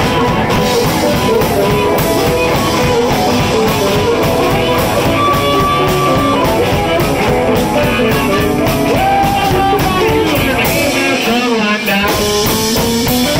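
Live blues band playing, with electric guitar over bass and drum kit. About eleven seconds in the bass and drums drop out briefly while a high bending, wavering melody line carries on.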